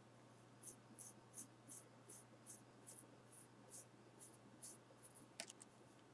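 Faint, soft scraping strokes, about three a second, of a knife edge drawn across arm hair in a shaving-sharpness test, then a small click near the end.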